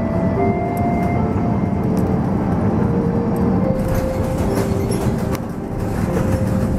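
Airliner cabin noise as the plane touches down and rolls along the runway: a loud, steady, low rumble of engines and wheels, with a few faint rattles about four seconds in.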